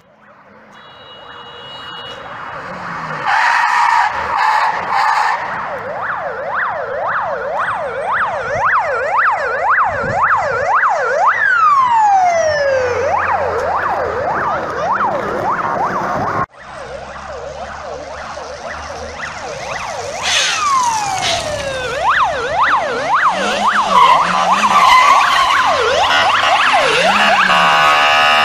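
Police car siren in a fast yelp, its pitch sweeping up and down about twice a second and twice sliding into a long falling sweep. It breaks off for an instant about halfway, and a steady blaring tone joins it near the end.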